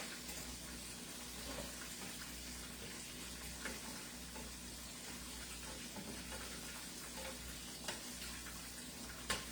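Chicken pieces frying in hot oil with a steady sizzle, and a few short clicks and knocks as the pieces are turned over in the pan.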